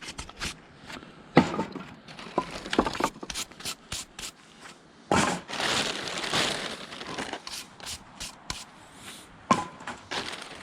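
Split hardwood firewood being handled: a series of sharp wooden knocks as logs strike each other, with a couple of seconds of rough scraping rustle about halfway through.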